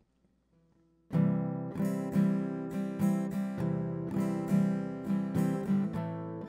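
Acoustic guitar strummed in a steady rhythm, starting about a second in after a moment of near silence: the instrumental opening of a song.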